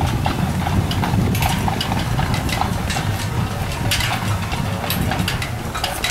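Strong wind buffeting the microphone, a steady low rumble, with scattered sharp ticks and taps over it.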